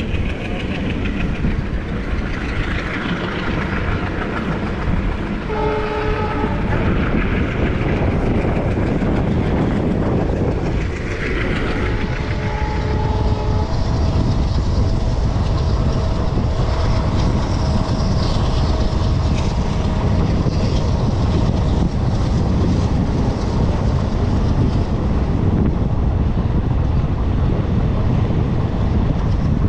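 Passenger train running on Indian Railways track, heard from on board: a steady rumble with rail clatter. A train horn sounds in short blasts twice, about six and twelve seconds in.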